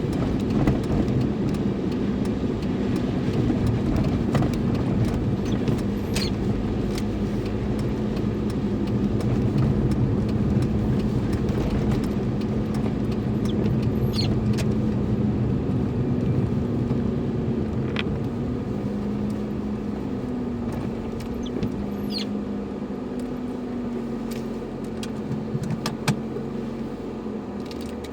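Car driving, heard from inside the cabin: a steady engine and road rumble whose pitch wavers a little, with a few scattered light clicks and ticks.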